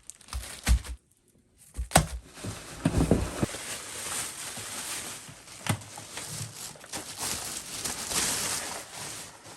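Hard plastic parts of a new upright vacuum being handled during unboxing and assembly: a few sharp knocks and clicks over continuous rustling.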